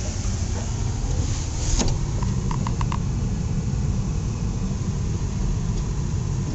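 Steady engine and road rumble heard from inside a car climbing a hill road, a car that has been cutting out on the climb. A click about two seconds in, then a quick run of four short beeps.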